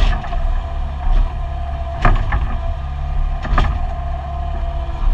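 Mini excavator's diesel engine running steadily under load with a steady hydraulic whine, heard from inside the cab. A few sharp knocks and clunks come from the digging: one at the start, two close together about two seconds in, and another about a second and a half later.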